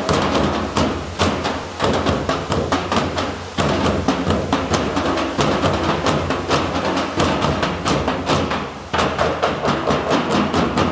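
Percussion troupe beating a fast, steady rhythm on metal barrels used as drums, several strikes a second.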